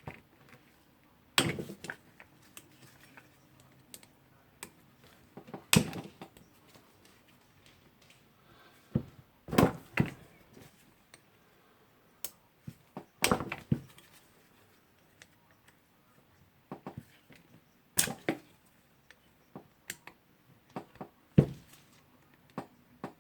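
Irregular sharp knocks and clicks of metal tools against a rotary hammer's housing as the threadlocked cover screws are worked on, a dozen or so, some louder than others, with no motor running.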